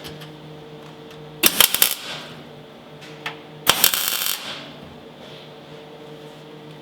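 Two short crackling bursts of MIG welding on thin sheet steel, the Beetle's new A-pillar repair panel being tacked, with a steady hum underneath.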